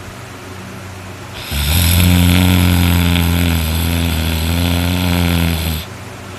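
A person snoring: one long, loud, low-pitched snore starts abruptly about a second and a half in and breaks off about four seconds later, with softer snoring breaths before and after it.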